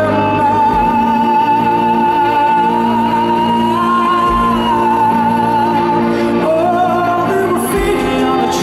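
Male lead vocal sung live over guitar and band: one long high note held for about five seconds, lifting briefly in the middle, before the next phrase begins.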